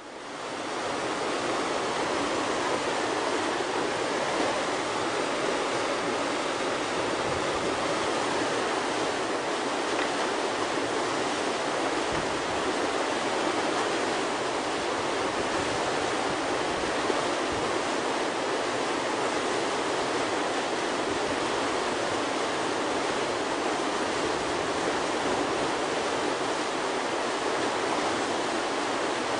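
Whitewater of a river rapid, the Yellowstone River's Maytag Hole, rushing with a steady even roar that fades in over the first second.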